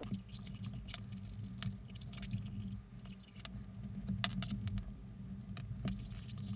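Hard plastic clip being worked onto a nylon webbing belt by hand: scattered sharp plastic clicks and knocks over a steady rustle of the webbing, with one louder click about four seconds in.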